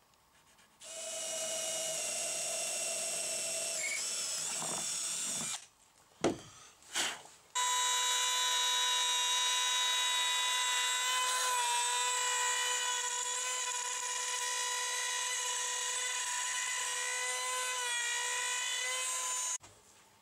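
Compact trim router running at high speed, cutting into plywood: a steady high whine in two long stretches. Between them come two or three short knocks, and the whine cuts off suddenly near the end.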